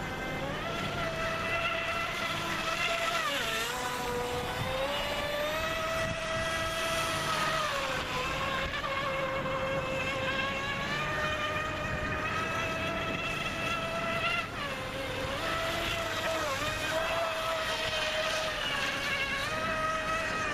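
Radio-controlled boat's brushless electric motor driving an outboard flex shaft, running at speed with a steady high whine. The pitch drops briefly and recovers a few times, about three and a half seconds in, near the middle, and again a couple of times in the later part, as the throttle is eased and reapplied.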